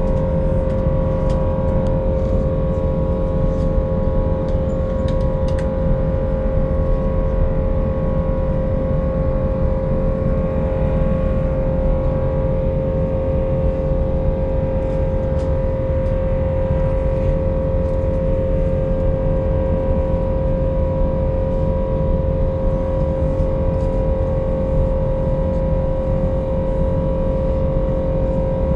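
Steady jet-airliner cabin noise in flight: a constant deep rumble of the engines and air with a steady hum tone running through it.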